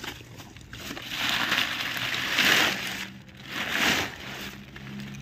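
Dry banana leaves and undergrowth rustling and crackling as they are pushed through by hand, in a few loud rustles each a second or two long.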